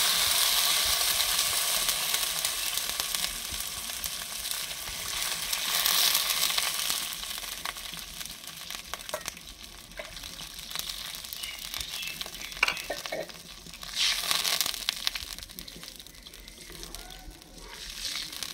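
Water poured into hot desi ghee in an iron kadhai, the fat sizzling loudly at first and then dying down. The sizzle swells again with fresh pours about six and fourteen seconds in, and there are a few light knocks near the middle.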